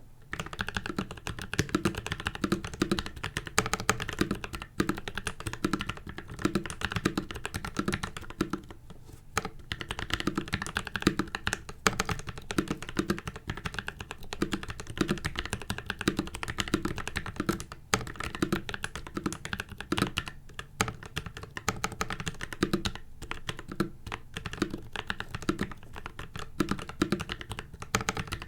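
Steady fast typing on a mechanical keyboard with PACO switches lubed with Krytox 205g0 and PBT cherry-profile keycaps, typed on without a desk mat. The typing starts right at the beginning and eases briefly about a third and two thirds of the way through.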